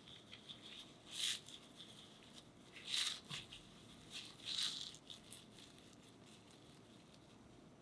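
Crisp crackling and rustling of toasted kataifi pastry strands being handled, in three short bursts about a second, three seconds and four and a half seconds in.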